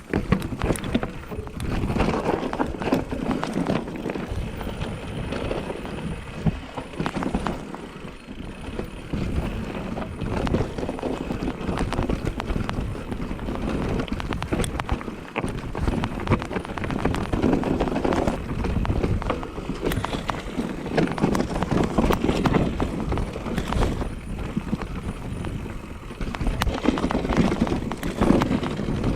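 Specialized Turbo Levo electric mountain bike riding down a dirt trail: tyres rolling over the ground amid a constant clatter of clicks and knocks from the bike, rising and falling in loudness.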